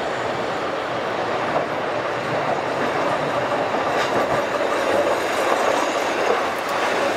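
Sapporo 3300-type streetcar running along street track and passing close by. Its wheels and motors make a steady rumble that grows louder in the second half, with a sharp click about four seconds in.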